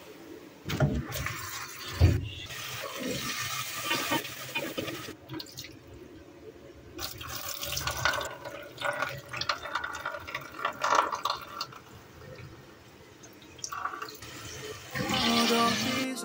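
Tap water running into a steel kitchen sink while cubed potatoes are rinsed in a plastic colander, with a couple of sharp knocks in the first two seconds from pots and containers being handled.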